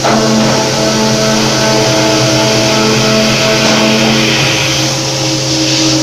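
Automatic CNC circular saw machine running with a steady motor hum and hiss. A set of whining tones comes in right at the start and holds for about four seconds before fading.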